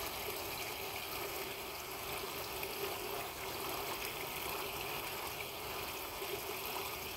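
Small irrigation ditch water trickling steadily, a constant, even sound.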